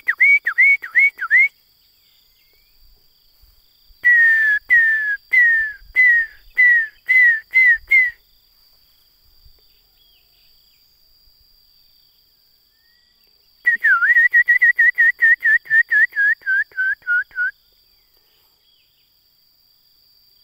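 A songbird singing bouts of clear, repeated whistled notes. A short run of rising notes comes at the start, then a slower series of falling slurs about four seconds in, and a fast run of about twenty notes later on. A steady high insect drone runs underneath.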